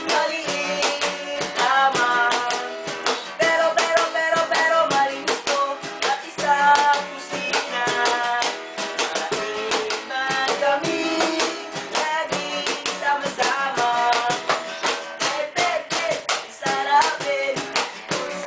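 Acoustic guitar strummed with a cajón slapped in a steady beat, an unplugged acoustic song.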